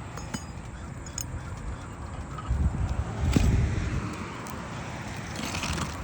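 Low rumbling noise on the microphone that swells between about two and a half and four seconds in, with one sharp knock in the middle of it and a few faint clicks.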